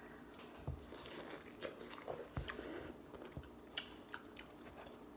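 Biting into and chewing corn on the cob: soft crunches and wet mouth clicks at irregular moments.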